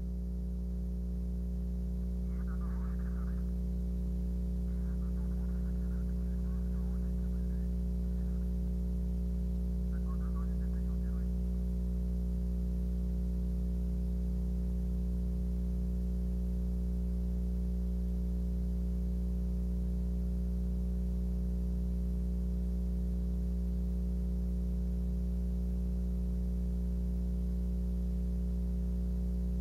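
Steady electrical hum on the broadcast audio feed, a low buzz with many overtones that does not change, with a few faint brief sounds in the first dozen seconds.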